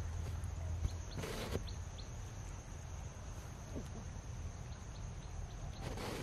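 Outdoor background with a steady low rumble and a few faint short bird chirps, broken by two brief noisy bursts, about a second in and near the end.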